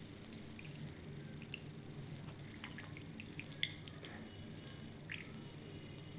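Thin stream of tap water running into a sink, with scattered small drips and splashes as a wet budgerigar moves under it; one splash stands out a little past the middle.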